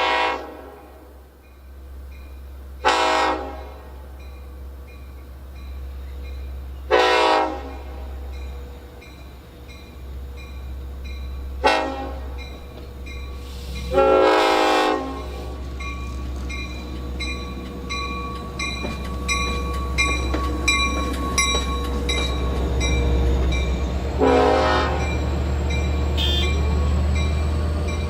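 Long Island Rail Road DE30AC/DM30AC diesel locomotive horn sounding a series of separate blasts, mostly short with a longer one in the middle and one very brief toot, over the deep rumble of the locomotive, which grows louder in the second half.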